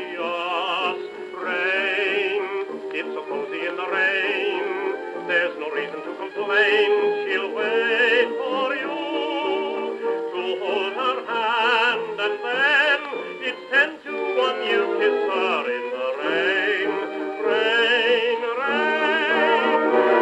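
A 1928 Columbia dance-orchestra 78 rpm record playing through a Columbia Grafonola Viva-tonal acoustic phonograph. The orchestra's melody lines carry a wavering vibrato, and the sound has no deep bass and little top, as acoustic horn playback gives.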